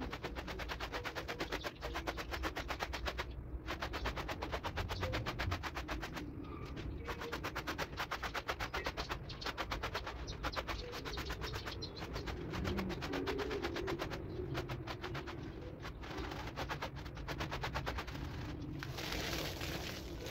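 Stiff hand brush scrubbing a wet, foamy rug in fast, even back-and-forth strokes, with a couple of short pauses. Near the end the strokes give way to a steadier swishing hiss.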